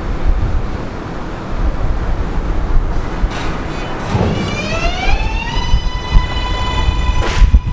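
New York City subway train pulling out, a low steady rumble of wheels on the rails. About four seconds in, the train's electric propulsion starts a whine that rises in pitch, then holds a steady high tone. A few sharp clacks sound near the end.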